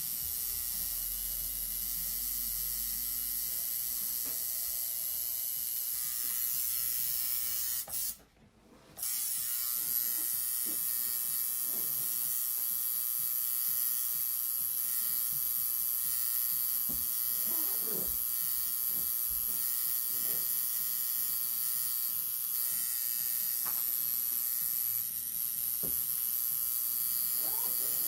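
Tattoo machine buzzing steadily, cutting out for about a second roughly eight seconds in, then running on.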